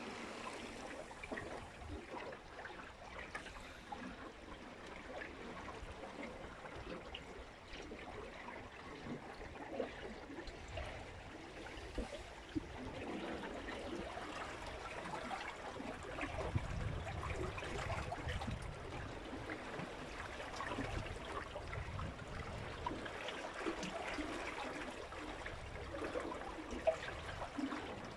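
Water splashing and gurgling along the hull of a small wooden sailboat under sail through choppy water. Low rumbling comes and goes about halfway through.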